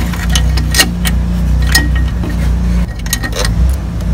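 Hard plastic clicks and knocks as a plastic engine-bay part is handled and fitted by hand: several sharp ones spread out, then a quick cluster near the end. A steady low hum runs underneath.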